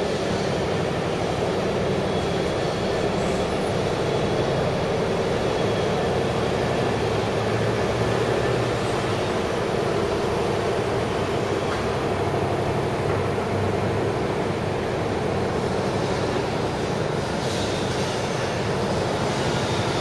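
Steady, unbroken city background rumble from an open-air vantage point over a construction site next to a railway station, with no distinct events standing out.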